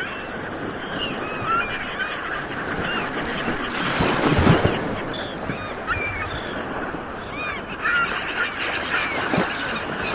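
Ocean waves washing steadily, with a wave breaking and swelling about four seconds in. Many short bird calls sound over the surf throughout.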